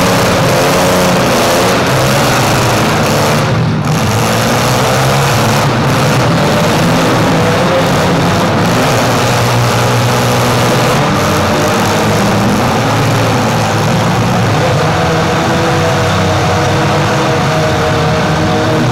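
Several demolition-derby SUVs and small trucks running and revving at once, a loud, continuous mix of engines rising and falling in pitch.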